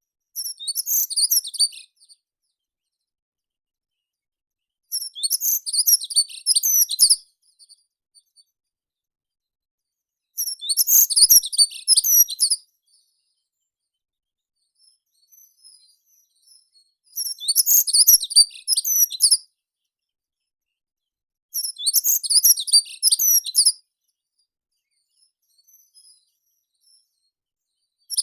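A meadow songbird singing five short, high-pitched song phrases of about two seconds each, with pauses of a few seconds between them.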